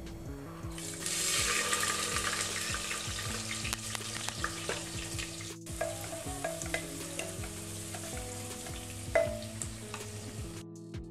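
Sliced onions hitting hot oil with whole spices in a pressure cooker, sizzling loudest just after they go in about a second in, then frying steadily as a spatula stirs them with scattered clicks and scrapes against the pot.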